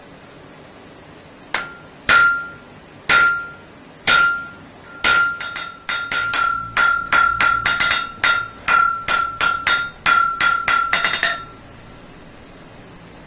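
Blacksmith's hammer striking hot iron on an anvil while forging tongs, each blow ringing. A light tap, then four heavy blows about a second apart, then a quicker run of blows at about three a second that stops shortly before the end.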